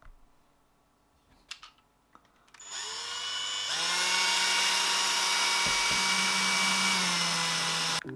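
Ryobi cordless drill driver running: a couple of faint clicks, then the motor spins up with a short rising whine and holds a steady whine for about four seconds before stopping abruptly near the end.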